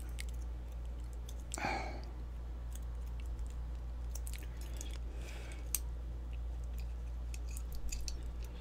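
Faint scattered metallic clicks and a couple of brief rustles from handling a padlock and its key and shim, over a steady low hum.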